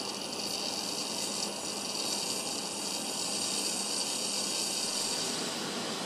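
Gas stove burner flame hissing steadily under a tea kettle, with no whistle tone yet.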